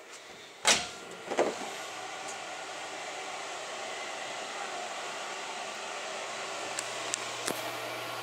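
Bathroom folding door knocked open: one sharp knock and a clattering second knock about half a second later. A steady hiss follows, with a few light clicks near the end.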